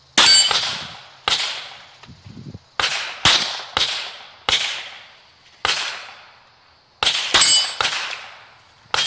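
About a dozen pistol shots fired in uneven strings at a steel plate rack, with pauses of about a second and a half between strings. Several shots are followed by the high ringing clang of a steel plate being hit.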